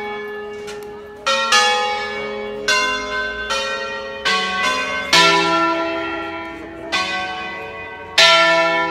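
Five-bell church tower set cast by De Poli in 1949 and tuned in E major, rung by hand in the Brescian concerto style. The ringers strike single strokes on different bells about once a second, each note ringing on and overlapping the next as a tune.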